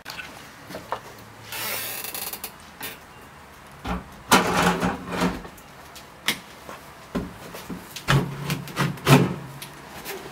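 A small hinged sheet-metal cabinet door, with a wire basket inside, being handled and pushed shut: scraping, rattling and a series of sharp metal knocks. The loudest clatter comes about four to five seconds in, with another run of knocks near the end.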